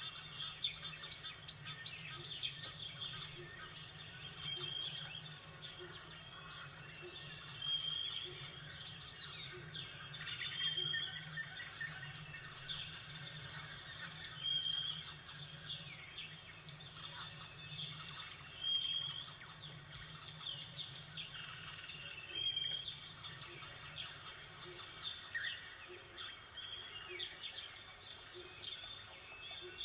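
Songbirds chirping and calling, with one short high call repeating every few seconds among other chirps, over a low steady hum.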